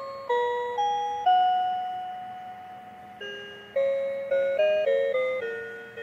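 Electronic Christmas tune from a musical Christmas tree decoration: a melody of chime-like notes, each starting sharply and fading away, with one long held note in the middle.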